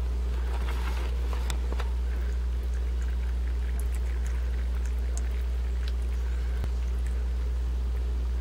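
A steady, loud low machine hum runs throughout, with faint trickling water and a few small splashes and ticks, most of them in the first couple of seconds.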